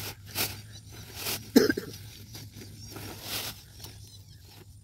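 White granular fertilizer pouring out of an upturned plastic sack onto a cloth sheet, with the sack rustling and crinkling in several short bursts. The loudest is one short burst about a second and a half in.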